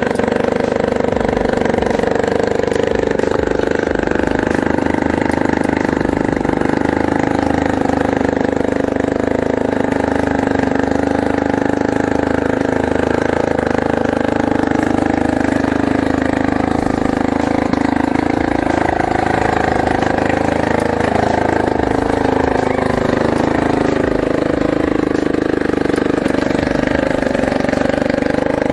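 Small 60cc ATV engine running steadily, its pitch rising and falling as the throttle is opened and eased.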